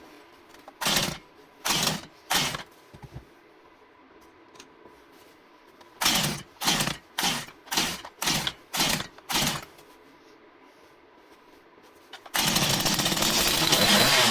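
Stihl MS 170 two-stroke chainsaw being pull-started: three quick pulls of the starter cord, a pause, then seven pulls in a row about half a second apart, the engine turning over without catching. About twelve seconds in, it catches and runs loudly.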